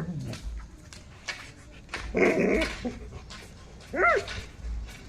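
Golden retriever giving a short rough growl-bark about two seconds in, then a single high yip near the end.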